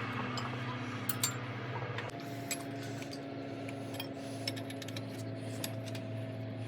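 Light metallic clinks and taps of hand tools on metal, scattered irregularly, over a steady engine hum.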